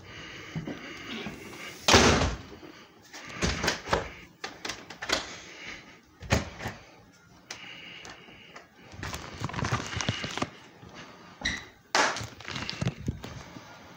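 A house door shuts with a loud thud about two seconds in. After it come scattered knocks, footsteps and rustling as the phone is carried through the house, with clothing rubbing over the microphone.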